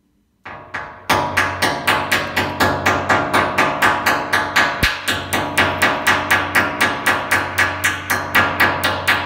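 Steel hammer striking the edge of a tempered-glass kitchen panel in quick, even blows, about four a second, with the glass ringing between strikes. The glass holds and does not break.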